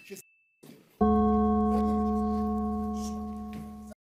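A gong struck once about a second in, ringing on one steady pitch and slowly dying away until it cuts off near the end: the signal that a speaker's time is up.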